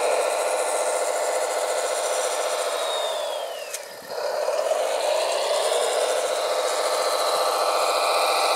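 Electric motors of radio-controlled construction machines running with a steady whirring whine. About three and a half seconds in, the whine falls in pitch and the sound fades briefly, then rises back to a steady run.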